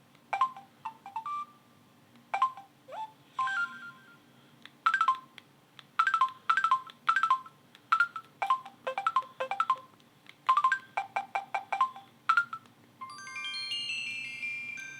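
Samsung SGH-E116 mobile phone playing its built-in message alert tones: short melodies of quick, sharp electronic notes in small clusters. About thirteen seconds in, a brighter ringing chime tone of many high notes takes over and fades out.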